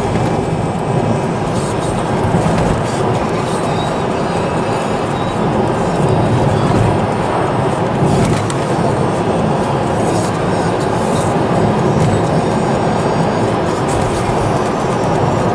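Steady in-cabin noise of a car driving at speed: an even rumble of tyres on the road and the running engine.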